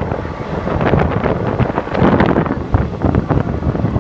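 Wind buffeting the microphone over the steady rumble and rattle of a moving suburban train.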